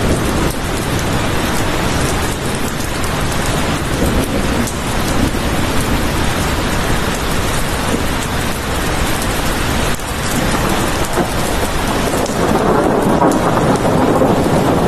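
Steady heavy rain: a continuous hiss of falling water with dense fine drop patter. Near the end it turns deeper and a little louder.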